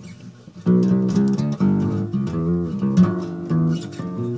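Guitar-led song demo playing. The music drops low for about the first half second, then comes back in full.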